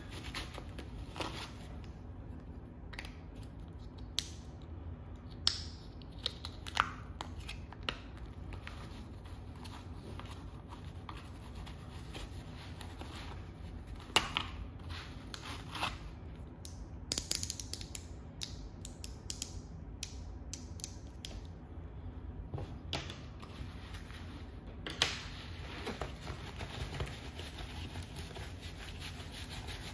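Sketchbook and drawing materials being handled: scattered soft clicks, taps and creaks over a steady low hum.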